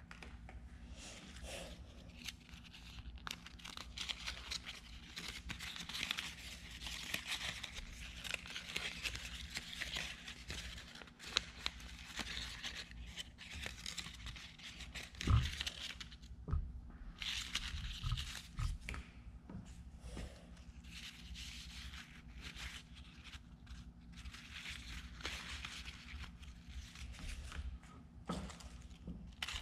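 Folded origami paper crinkling and rustling as hands flex and handle the models. A few low knocks come around the middle, the loudest about halfway through.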